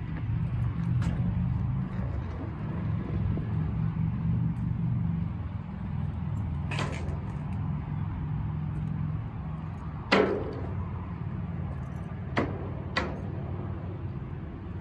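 Skateboard wheels rolling on rough concrete, a steady low rumble that thins out around nine seconds in. Several sharp knocks of the board, the loudest about ten seconds in.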